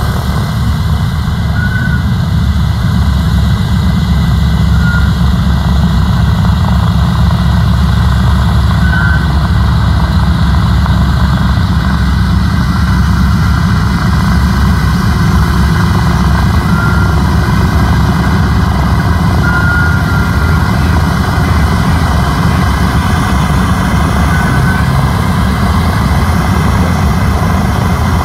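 B-17 Flying Fortress's four Wright R-1820 Cyclone nine-cylinder radial engines running at taxi power as the bomber taxis: a loud, steady, low-pitched drone.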